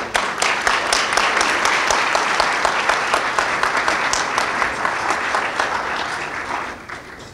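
Audience applauding. The clapping starts abruptly and fades out near the end.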